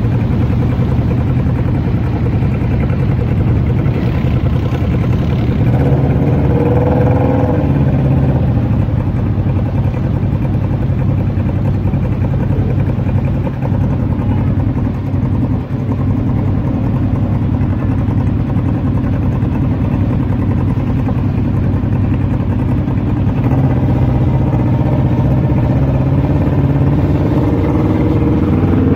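Side-by-side UTV engines running steadily at low speed through a muddy, water-filled trail, with a short rise in engine pitch about six to seven seconds in.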